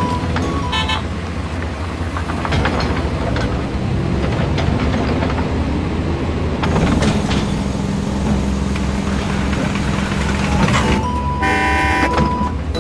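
Heavy vehicle engine running with a loud, steady rumble, and a single horn blast about a second long near the end.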